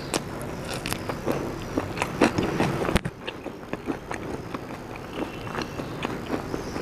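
A person biting and chewing food: many short crunches and wet mouth clicks, with a sudden break about three seconds in where the sound cuts and resumes.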